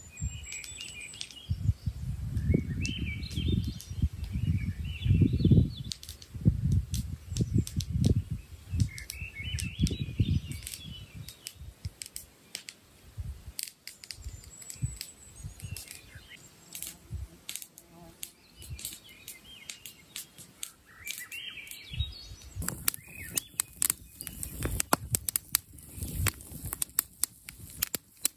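Songbirds singing short chirping phrases, repeated every few seconds, with low gusts of wind on the microphone through the first half. About 23 seconds in, a wood campfire starts crackling densely.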